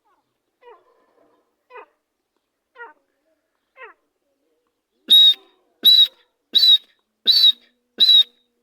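A francolin (teetar) calling: four faint short notes about a second apart, then from about five seconds in a run of loud, sharp, high calls about every 0.7 seconds.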